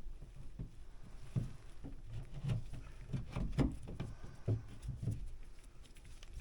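Irregular light knocks, taps and clicks of hand work with tools and materials, scattered unevenly with no steady rhythm.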